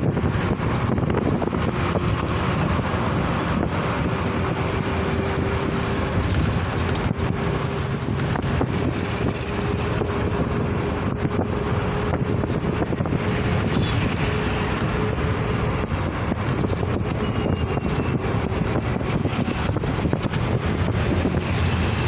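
Wind rushing over the microphone and road noise of a moving vehicle, heard from inside it. A faint steady hum comes in for a stretch in the middle.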